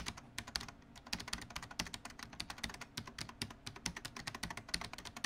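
Fast typing on a computer keyboard: an irregular stream of key clicks, several a second.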